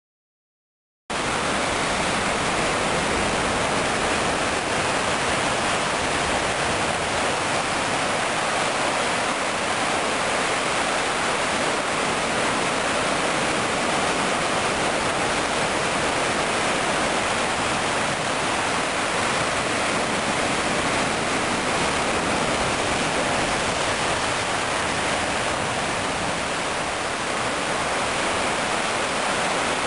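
Surf on rocks: a steady, even roar of white water that cuts in suddenly about a second in, with hardly any rise and fall.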